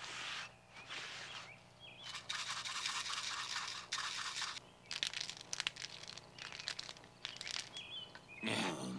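Cartoon sound effects of a knife slicing raw meat on a wooden block, then a shaker being shaken over the meat in a run of short hissing, rattling bursts from about two seconds in.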